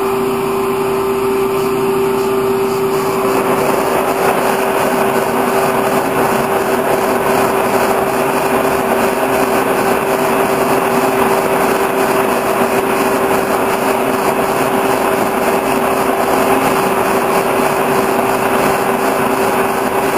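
Horizontal boring mill running under power, its drive giving a steady whine over a loud, even wash of machine noise, during a final turning cut on a shaft. The noise grows fuller about three seconds in.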